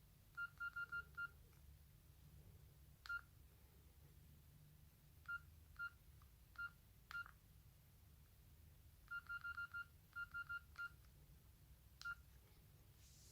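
Mobile phone key tones from a Nokia N93 as its keys are pressed: about twenty short beeps, all at the same pitch, some in quick runs of four or five and others single. A few faint key clicks come with them.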